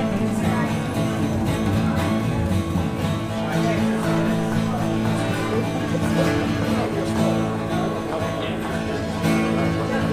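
A small live band playing, led by strummed acoustic guitar.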